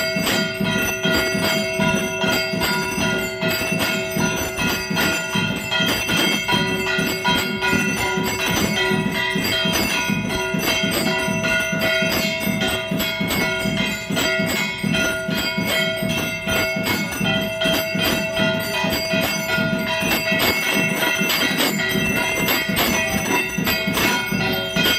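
Aarti bells ringing continuously, struck rapidly over and over so that their ringing tones overlap into a steady metallic clangor.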